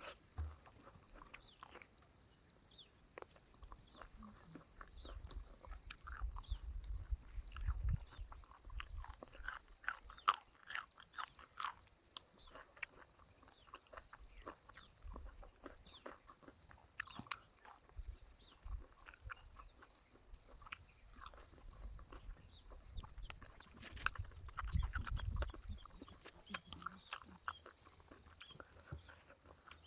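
Close-up eating sounds: someone chewing, with many small mouth clicks and crunches and a few low rumbles.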